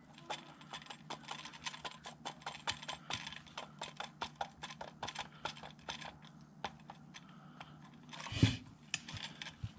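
A tight white sleeve being twisted and pushed by hand over a chrome lamp neck: a faint, irregular run of small crackles, creaks and clicks as it grips and slips, with a louder scuff near the end.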